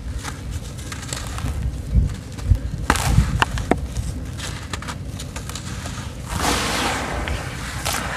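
Soft sand-cement lumps crumbled by hand into a basin of shallow water: gritty crunching and crackling, with a few sharper cracks a little after three seconds and a longer hiss of falling crumbs and powder from about six seconds in.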